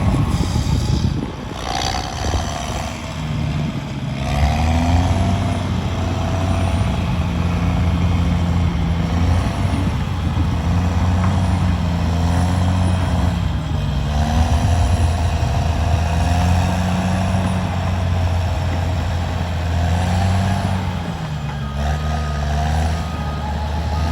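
Heavy diesel engine working hard under load, its pitch rising and falling again and again as it revs up and eases off.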